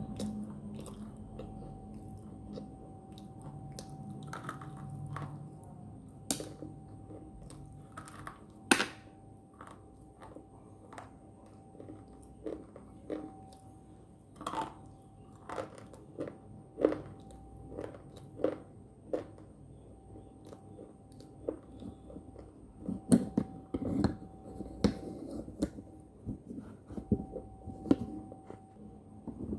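Close-up biting and chewing of hard slate sticks: sharp crunchy snaps at irregular intervals, one at a time, with a quicker run of crunches a little past two-thirds of the way through.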